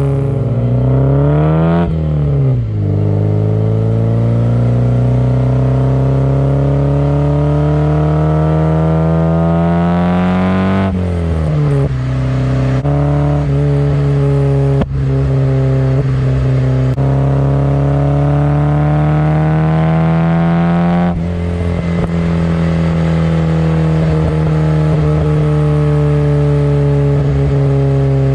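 Nissan 240SX's KA24DE 2.4-litre inline-four, breathing through 4-2-1 headers, a test pipe and an HKS Hi-Power exhaust, accelerating under load. The engine note climbs and drops at a gear change about 2 seconds in. It climbs again for about eight seconds, drops at another shift about 11 seconds in, and then runs fairly steady.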